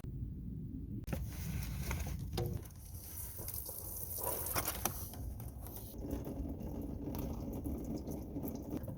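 Scattered light clicks and rattles of hand tools and metal parts being handled while bolts are taken off in the engine bay.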